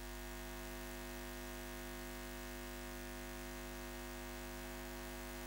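A steady, unchanging electronic drone or hum made of several held tones over a faint hiss.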